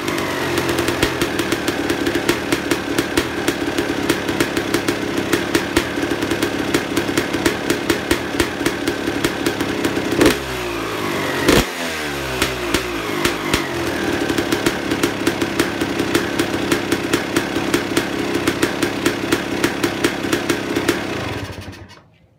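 Suzuki RM250 two-stroke dirt bike engine breathing through an FMF Shorty silencer, idling with a rapid crackle. It is blipped sharply twice about halfway through, with the revs falling back after each, and is shut off near the end.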